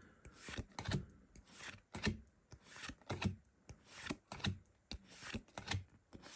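Trading cards sliding against one another as a hand thumbs through a small stack, a series of short swishes and flicks about twice a second.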